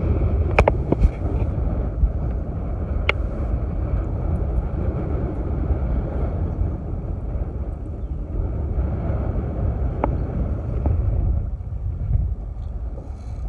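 Steady low rumble of wind buffeting the microphone over open water, broken by a few sharp clicks from the rod and spinning reel being handled while a fish is reeled in.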